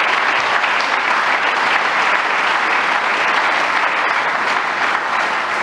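A seated audience applauding, steady clapping from many hands.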